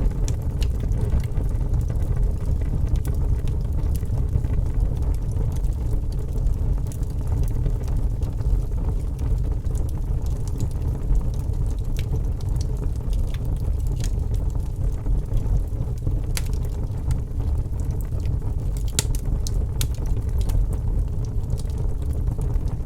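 Wood fire crackling, scattered sharp pops and snaps over a steady low rumble.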